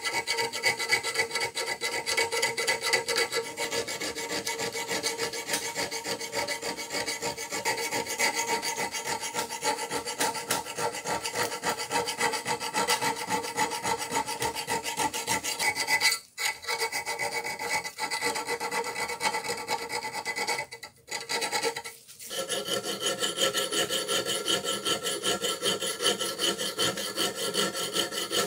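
Flat hand file scraping back and forth across the rusty steel shank of a 1940s Irwin screwdriver in quick, steady strokes, breaking off briefly a few times after the midpoint.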